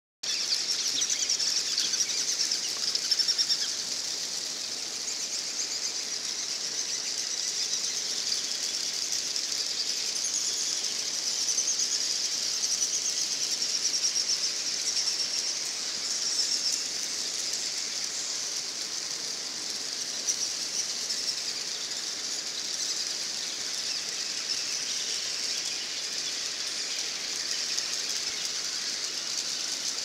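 Huge numbers of swiftlets and bats flying in the cave make a dense, unbroken, high-pitched chorus of clicks and calls. It is a little louder in the first few seconds.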